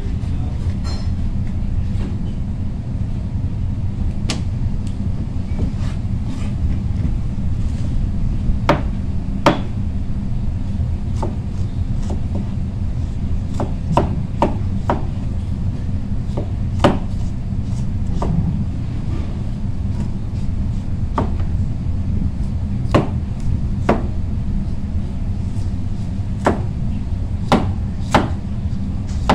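Kitchen knife slicing the skin off a squash, its blade knocking sharply on the cutting board about fifteen times at uneven intervals. A steady low hum runs underneath.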